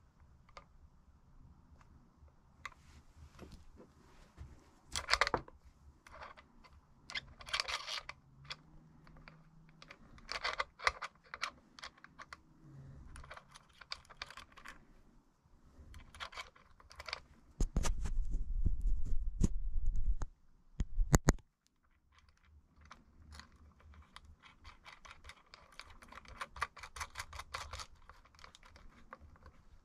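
Tools and small bike parts being handled at a workbench: scattered clicks, clinks and short scraping rattles. About two-thirds of the way through comes a loud low rumble lasting two to three seconds, followed by two sharp knocks.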